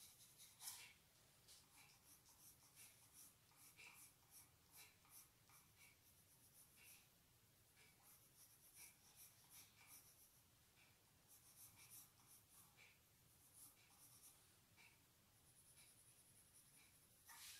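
Crayon scratching on paper in short, faint, repeated strokes, about one or two a second at an uneven pace.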